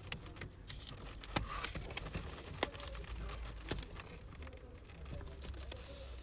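Rustling and handling noises of a window curtain or shade being moved in a small car's cabin, with about three sharp clicks spread through.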